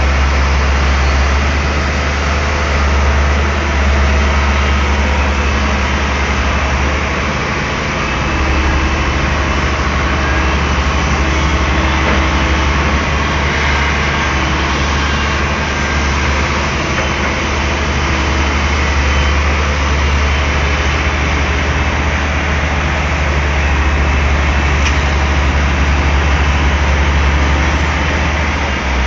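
Daewoo Solar 280 LC-III tracked excavator's diesel engine running steadily with a deep low hum, easing slightly about seven seconds in.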